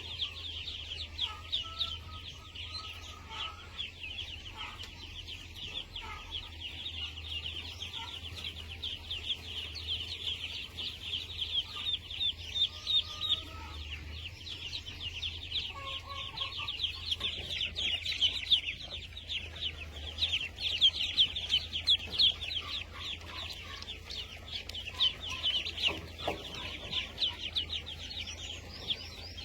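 Chickens: a dense, unbroken chorus of high, rapid cheeping with occasional lower clucks over it, and a steady low hum underneath.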